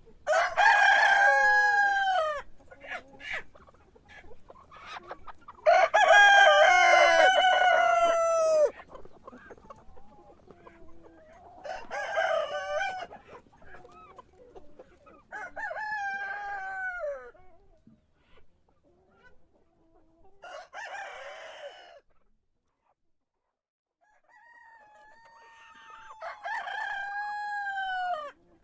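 Rooster crowing over and over, six crows in all with pauses between them, the longest and loudest about six seconds in.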